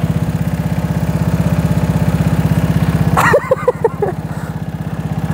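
Go-kart petrol engine idling close by, a rapid, even chugging pulse. About three seconds in, it drops away for under a second under a brief higher-pitched wavering sound, then resumes.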